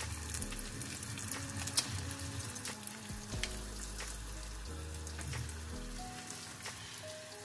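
Small balls of donut batter frying in hot oil in a pot: a steady sizzle with many small crackles. Background music with held low notes plays underneath.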